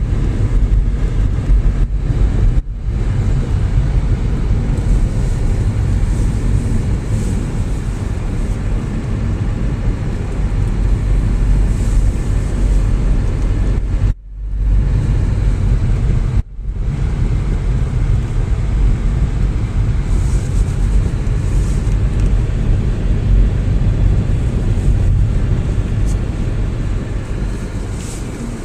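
Car driving, a steady heavy rumble of road and engine noise, dropping out briefly twice about halfway through.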